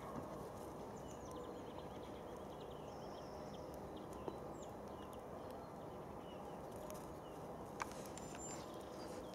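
Steady low outdoor background rumble with faint short bird chirps scattered throughout, and two single faint clicks, one about halfway through and one near the end.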